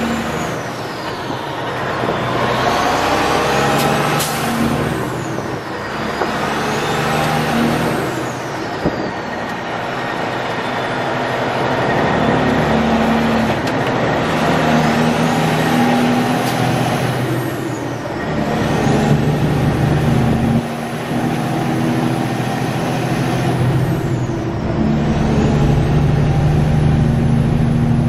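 Semi truck's diesel engine heard from inside the cab, pulling hard as the driver upshifts the manual gearbox. The engine tone climbs, drops away briefly at each shift (about four times), and picks up again, with a high whistle rising and falling with the revs.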